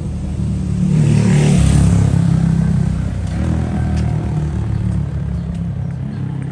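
A motor vehicle engine running nearby with a steady low hum. It swells about a second in, as if passing close, then eases off.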